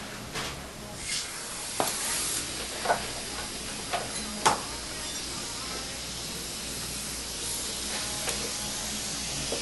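Dental suction hissing steadily, with several short sharp clicks of metal microsurgical instruments, most of them in the first half.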